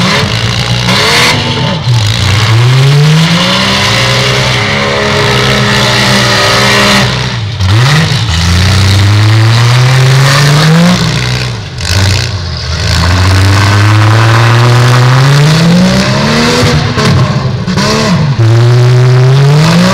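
Demolition derby car engines revving hard, their pitch climbing in long rises again and again, with short drops in between as the cars push and spin their wheels.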